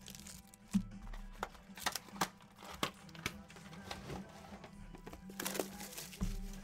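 Quiet background music under scattered clicks and crinkling, as of packaging or card cases being handled.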